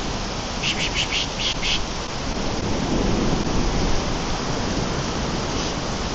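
Heavy monsoon rain pouring steadily. Near the start comes a quick run of about six short high chirps, and about three seconds in a low rumble swells briefly.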